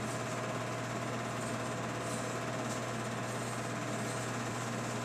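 An 8mm film projector running with a steady mechanical whir over a constant low hum.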